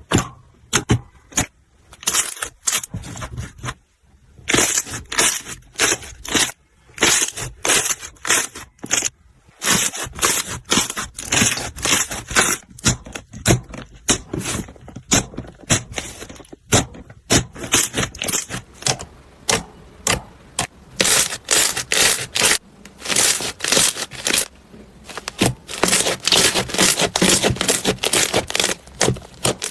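Slime being squeezed, poked and stretched by hand: a fast run of sticky clicks and crackling pops, at times dense enough to merge into continuous crackle.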